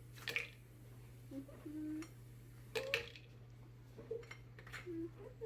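A bowl or dish knocked sharply twice, with brief low hummed voice sounds between the knocks and a steady low electrical hum underneath.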